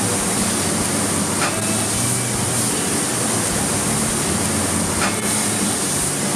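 Fillet steak sizzling loudly on a lava stone grill heated to 440°C, a steady hiss of fat and juices spitting on the hot stone.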